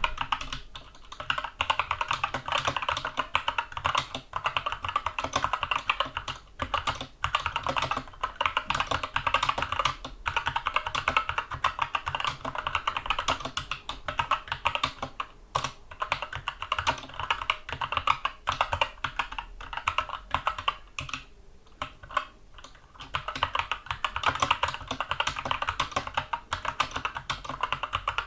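Typing on a Skyloong SK64 mechanical keyboard with Gateron Brown tactile switches: fast, continuous keystrokes with a few short pauses, the longest about 21 seconds in.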